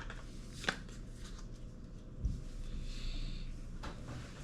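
A Pokémon card booster pack being handled and opened: scattered sharp crinkles and clicks of the foil wrapper and cards, with a soft thump a bit over two seconds in and a brief rustle about a second later.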